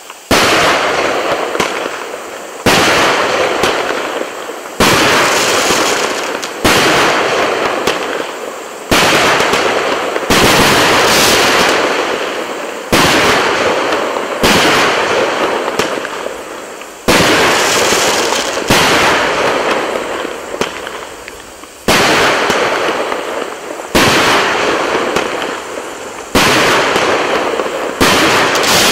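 A 64-shot 1.25-inch firework cake ("Korporativ") firing a steady sequence of shells, one sharp bang about every two seconds. Each bang is followed by a long crackling tail from the bursting stars that fades before the next shot.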